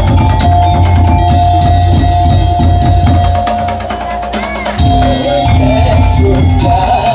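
Madurese daul percussion ensemble playing: dense, fast drumming with a heavy bass drum under a long held high melodic note. The low drums drop out for about a second past the middle, then come back in.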